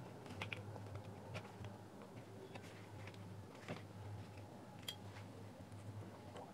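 Faint, scattered small clicks and taps of plastic speaker parts and a circuit board being handled, over a low steady hum.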